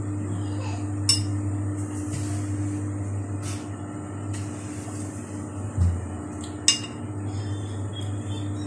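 Spoon clinking against dishware a few times, with a sharp clink about a second in, a dull knock and then another sharp clink near the seven-second mark, over a steady low hum.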